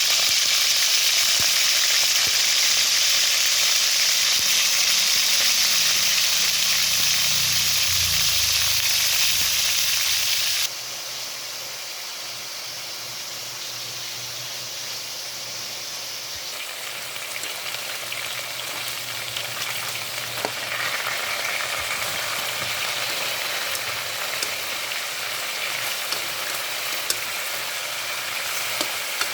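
Food sizzling in hot oil in a cooking pan for chicken mechado, a steady frying hiss. About ten seconds in it drops abruptly to a quieter sizzle, which grows a little louder again later, with a few light clicks near the end.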